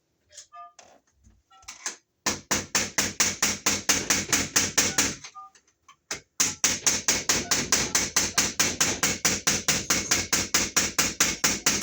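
Rapid, even tapping or knocking, about seven sharp strikes a second, in two runs: one of about three seconds starting about two seconds in, then after a short pause a longer one of about five seconds.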